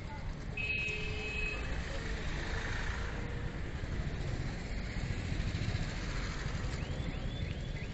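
Road traffic: a steady low rumble of vehicles around the roundabout, with a brief high steady tone about half a second in. Near the end a quick run of short rising-and-falling chirps, several a second.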